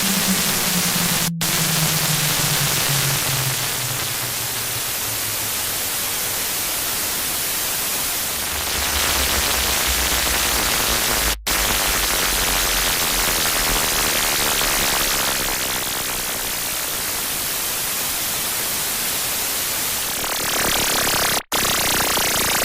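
Harsh-noise static: a loud, dense hiss across the whole range. A low tone slides downward over the first few seconds, a deep rumble comes in for several seconds in the middle, and the noise cuts out for an instant three times, about a second in, midway and near the end.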